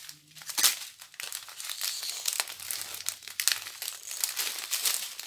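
Strip of clear plastic sachets of round diamond-painting drills crinkling as it is handled and held up, with sharp crackles throughout, one louder crackle about half a second in.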